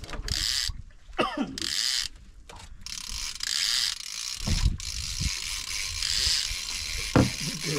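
Fishing reel being cranked in, its gears and clicker ratcheting in spells of about half a second to a second and a half, with a few dull thumps.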